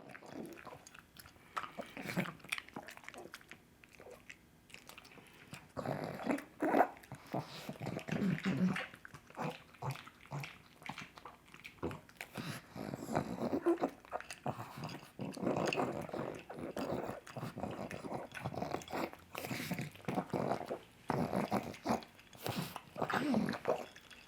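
Pug eating sausage: wet chewing and snuffling breaths through its short snout, coming in irregular bouts with many small clicks of the jaws.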